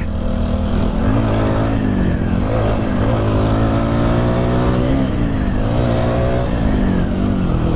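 TVS Apache RTR 160 4V motorcycle's single-cylinder engine under way, its pitch rising as it accelerates and dropping back about three times as the rider works the throttle and gears.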